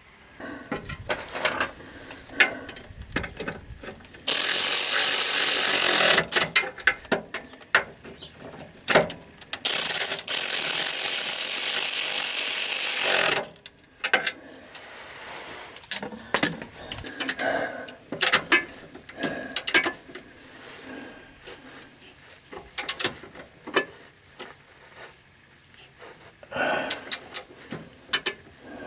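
Tools working bolts under a truck: scattered ratchet clicks, knocks and clatter of metal parts. Two loud, steady hissing bursts with sudden starts and stops, one of about two seconds near four seconds in and one of about three seconds near ten seconds in.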